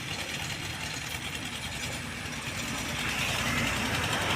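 Old tractor engine running steadily with an even, rapid low beat.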